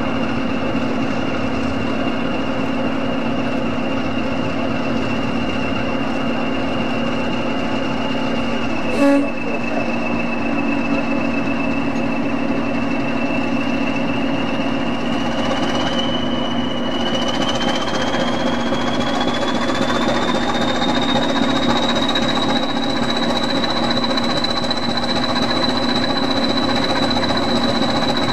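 English Electric-engined Class 20 and Class 37 diesel locomotives running, a steady low engine drone under a thin turbocharger whistle that climbs in pitch a little past halfway through and then holds as power is taken up. A single short knock about nine seconds in.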